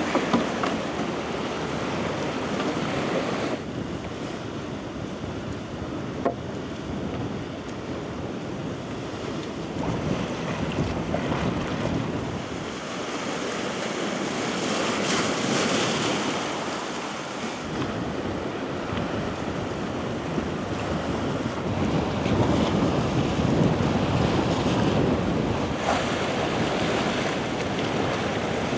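Sea waves washing in, swelling and easing every few seconds, with wind buffeting the microphone.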